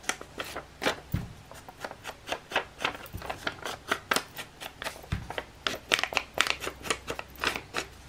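Paper being worked by hand at a craft table: a quick, irregular run of crisp paper rustles and clicks, several a second.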